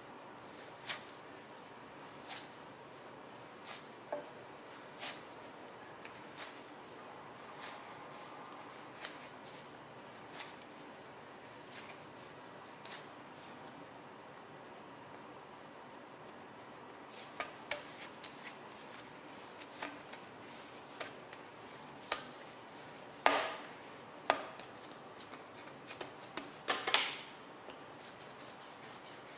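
Dough being kneaded by hand on a silicone baking mat: soft taps and slaps at each push, about one every second or so. Near the end they come faster, with a few louder knocks.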